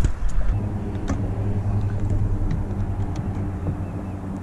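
A boat motor running with a steady low hum that sets in about half a second in, with a few light clicks over it.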